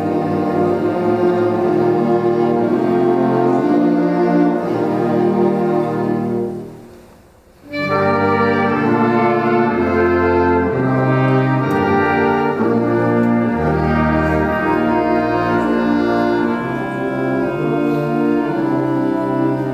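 Concert band of brass and woodwinds playing sustained chords with tuba underneath. About six seconds in, the sound dies away into a brief pause, and the full band comes back in about a second later.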